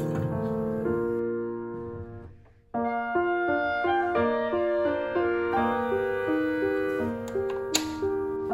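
Background piano music with steady melodic notes. It fades out and starts again abruptly about two and a half seconds in.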